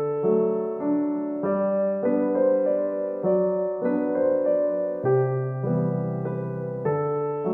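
Background solo piano music: a slow melody over held chords, with the notes changing about every half second to a second.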